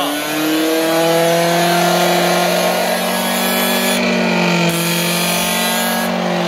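A freshly rebuilt Gilera Runner scooter's liquid-cooled two-stroke engine is revved up in the first second and then held at high revs, running steadily.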